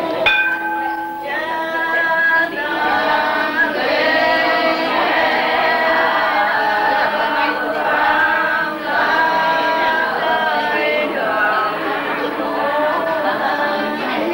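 A group of voices singing together, holding long notes that bend up and down.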